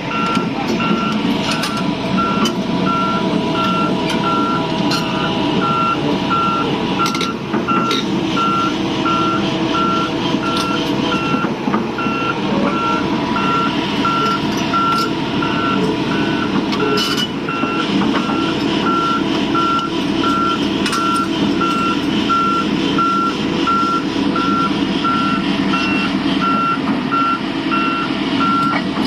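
Volvo 200/210-class hydraulic excavator running, its travel alarm sounding a steady series of short beeps a little under two a second over the diesel engine's drone, with a few sharp knocks and clanks.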